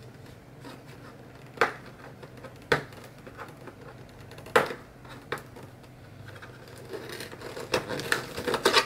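Cardboard packaging of a Rode VideoMic Pro being handled and opened: a few sharp clicks and taps spaced a second or two apart, then quicker rustling and clicking near the end.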